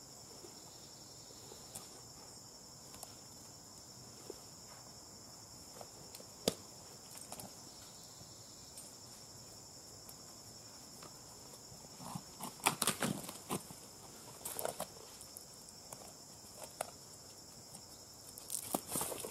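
Boots and climbing gear scraping and knocking against a tree trunk during a rope-and-tether descent, in scattered clusters with one sharp knock a third of the way in and busier bursts about two-thirds through and near the end. A steady high insect drone runs underneath.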